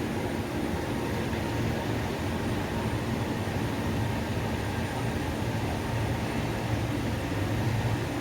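Steady low rumble with an even hiss from inside a moving vehicle's cabin.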